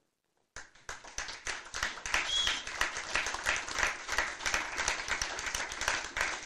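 Audience applauding, a dense steady clapping from many hands that starts about half a second in, after a moment of silence.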